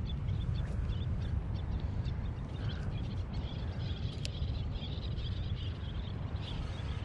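Birds chirping, many short high calls scattered irregularly, over a steady low rumble.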